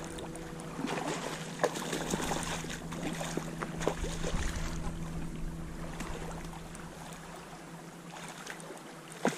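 A hooked brown trout splashing at the surface of shallow lake water while a spinning reel is wound in. Irregular small splashes and reel clicks come thickest in the first half, then thin out.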